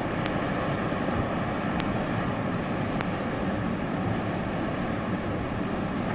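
Steady, even rushing roar of the American Falls at Niagara, a heavy waterfall plunging into its mist.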